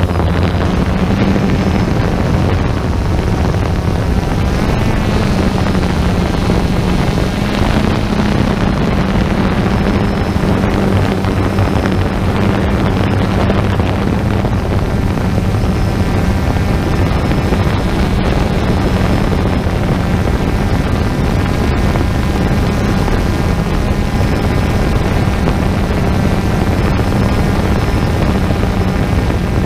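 Quadcopter drone's motors and propellers whirring steadily, heard close up from the drone's own camera, the pitch wavering slightly as it flies.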